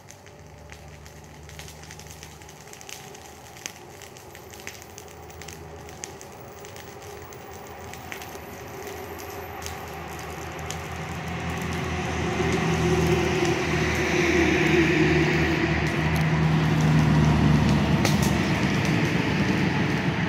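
A passing vehicle's rumble and rushing noise that swells steadily over about ten seconds and then holds at its loudest, with a few faint clicks before it.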